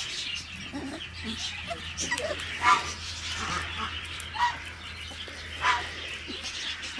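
Five-week-old cocker spaniel puppies giving a few short, high yips.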